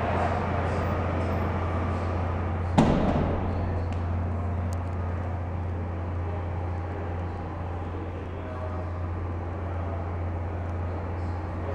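Room ambience: a steady low hum under a faint murmur, with one sharp knock about three seconds in.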